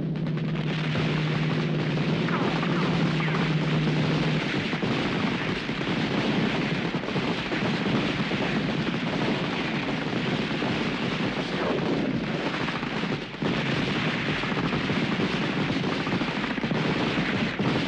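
Dense, continuous gunfire, much of it rapid automatic fire, as in a heavy firefight. A steady low drone runs under it for the first few seconds.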